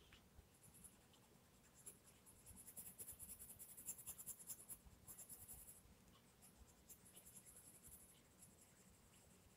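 Castle Arts Gold coloured pencil scratching faintly across paper in a run of quick, short shading strokes, strongest from about two to six seconds in, then fading to a few light strokes.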